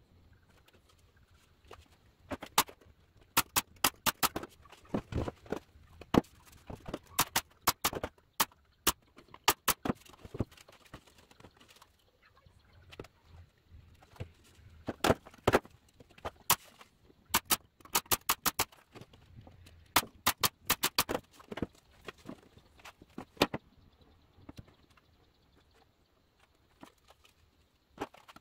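Plywood drawer panels knocking and clattering against each other and a wooden workbench as they are stood up and fitted together into a box: two spells of sharp, irregular knocks and taps with a short lull between them.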